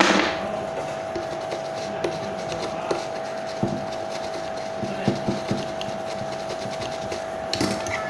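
A small brush scrubbing the solder holes of a phone's charging-port circuit board clean after the old connector has been removed, with scattered light knocks on a wooden workbench. A steady high electrical hum runs underneath.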